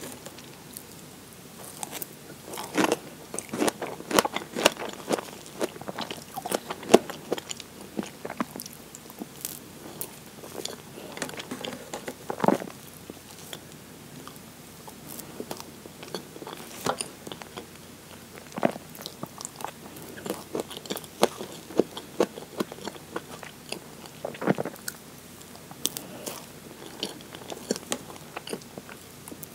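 Close-miked eating of a whipped-cream strawberry sponge cake: soft, wet chewing and mouth sounds, mixed with a metal fork cutting into the sponge and tapping and scraping against the cake board, in many sharp, irregular clicks.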